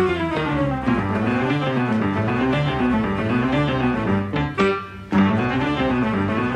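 Background music with pitched string-like lines gliding up and down; it dips briefly about two-thirds of the way through.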